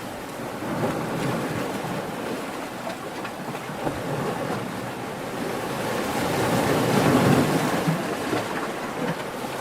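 Ocean waves breaking and washing on shore in a continuous rush, swelling to a louder surge about two-thirds of the way through.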